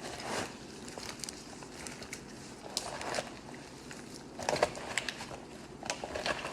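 Light clicks, taps and rustling of a utensil working through a pan of collard greens, in short irregular bursts with a few louder ones about three, four and a half and six seconds in.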